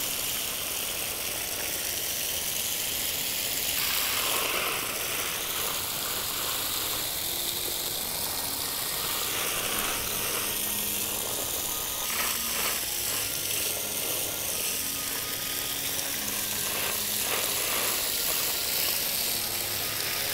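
Garden hose spraying a shower of water onto potted mountain hydrangea cuttings: a steady hiss and patter of water on leaves, soil and plastic pots. This is the first thorough watering of newly stuck cuttings.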